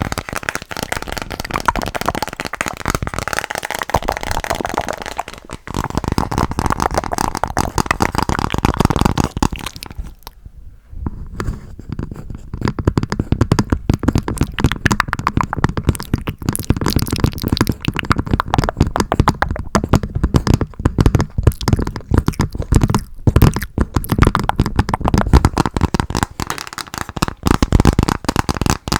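Fast tapping on a Hello Kitty Uno card game's box, close to the microphone, a dense run of quick taps with a short pause about ten seconds in.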